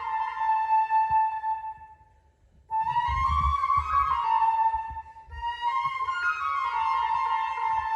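Solo flute playing a slow melodic line. The phrase breaks off for a moment about two seconds in, then starts again.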